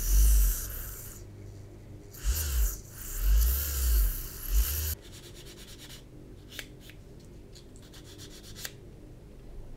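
Small hand-held rotary tool with a fine bit grinding into a plastic model part, in two bursts, the second about three seconds long, with a wavering motor whine as the bit bites. It stops about five seconds in, followed by a few faint clicks of the part being handled.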